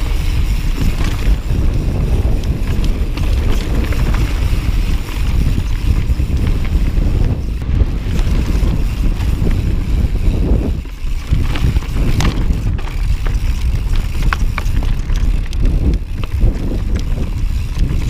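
Heavy wind buffeting the microphone of a mountain biker riding a trail, a loud, gusting low rumble, with a few sharp clicks from the ride over the rocks.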